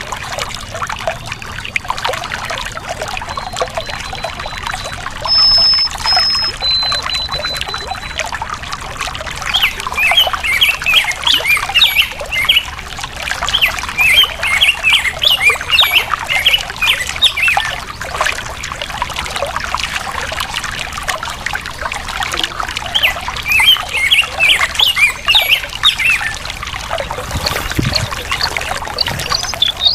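Water flowing and trickling steadily over the rocks of a stream, with birds singing over it. A few long, level whistled notes come in the first several seconds, then bursts of rapid chirping from about ten seconds in.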